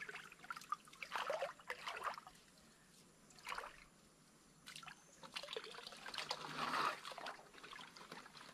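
Shallow water trickling and splashing in short, irregular bursts, loudest around six to seven seconds in.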